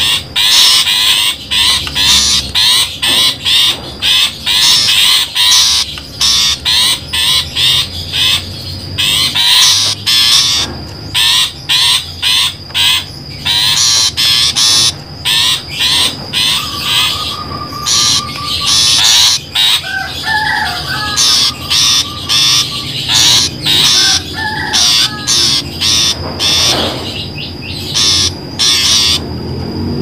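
Long-tailed shrike (pentet) giving loud, harsh, rapid scolding calls in quick bursts over and over, as played on a bird-trapping lure recording. A steady high thin tone runs underneath, and a few softer warbled phrases come in the middle.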